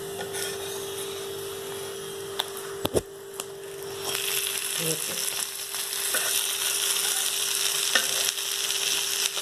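A ghee-fried roti roll sizzling on a flat pan while it fries to golden. A few sharp spatula knocks come about three seconds in, and the sizzle grows louder from about four seconds as the spatula presses on the roll.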